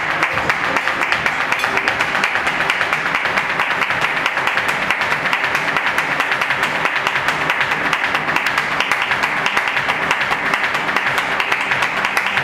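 Live flamenco: acoustic guitars playing under a dense, fast run of sharp percussive clicks.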